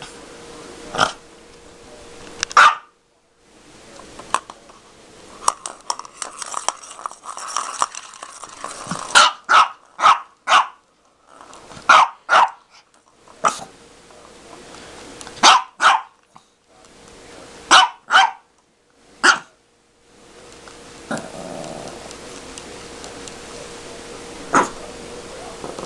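A dog barking in short, sharp barks, irregularly spaced and often in quick pairs, with growling between the barks.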